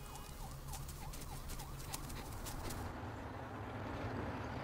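Faint city ambience: a steady low rumble of traffic, with a faint chirp that repeats about three times a second in the first part. Near the end it gives way to street traffic.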